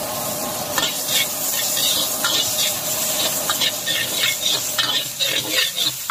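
Egg and chopped aromatics sizzling in a hot wok, with a metal wok ladle scraping and knocking against the pan as it stirs. The ladle strokes come faster in the second half.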